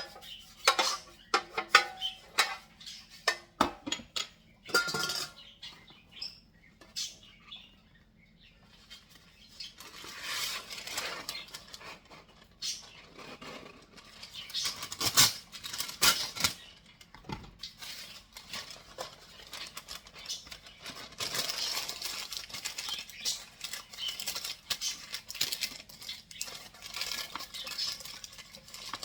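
Kitchen utensils and dishes clinking and knocking in a quick series of sharp clicks. From about ten seconds in, denser scraping and rustling follows, with knocks scattered through it.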